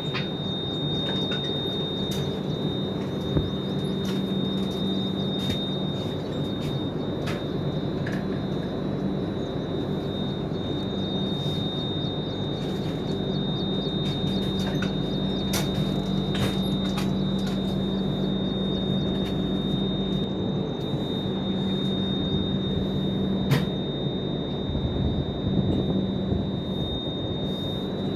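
A halted passenger train standing still: a steady low hum with a constant thin high-pitched whistle over a background hiss, and a few faint clicks.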